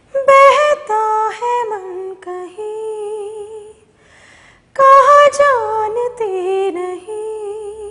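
A woman's voice singing a melodic phrase that starts high and steps down in pitch, then repeating it after a short pause, with little accompaniment.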